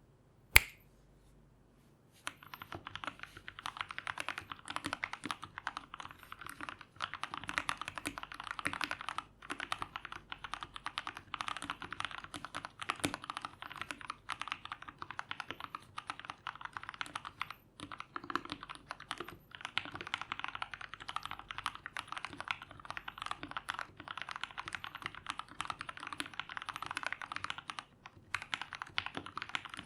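Custom KBDFans KBD75v2 mechanical keyboard with a PC plate and lubed Gateron Milky Yellow linear switches being typed on fast and continuously, with a few brief pauses. One sharp, loud click comes about half a second in, before the typing starts.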